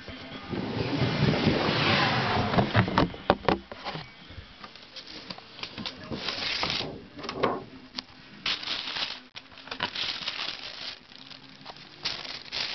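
A cardboard Air Jordan XI shoebox being handled and opened: rubbing and a few sharp knocks in the first few seconds, then tissue paper rustling in patches as the shoes are uncovered.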